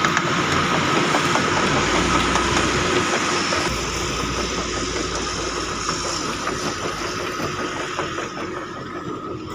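Diesel engine of a lowboy trailer truck running as the truck pulls away, its sound growing gradually fainter over the last few seconds.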